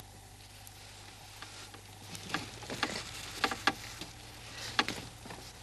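A few light, irregular clicks and taps from hands handling a cloth-covered watch, over a steady low hum.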